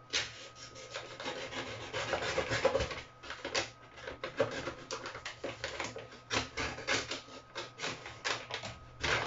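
Brown paper mailing bag crinkling and rustling while it is cut open along the bottom, with irregular crackles and scrapes.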